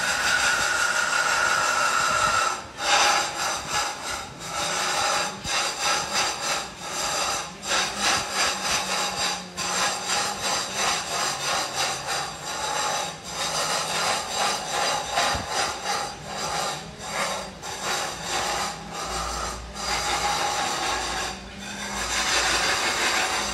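Woodworking tools rasping on wood: a continuous rough scraping, broken by short pauses every few seconds.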